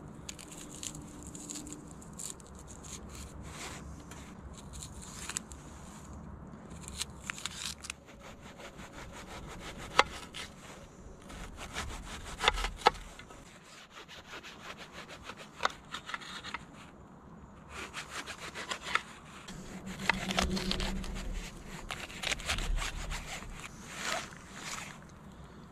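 Kitchen knife slicing through a tomato and an onion held in the hand, with scraping cuts and a few sharp clicks as the blade meets the metal tray beneath.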